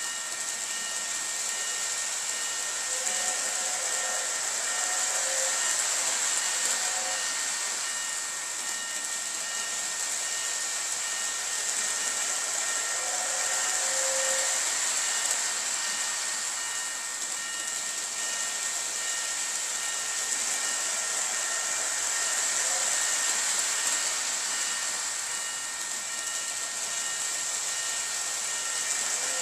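Lionel O gauge Polar Express model train running on its track: a steady hissing running noise that swells and fades as the train circles past, with faint thin high tones over it.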